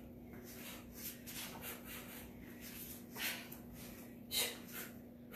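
A kickboxer's sharp breaths and shoes scuffing and landing on foam floor mats while throwing roundhouse kicks: a few short bursts, the loudest about four seconds in, over a steady low hum.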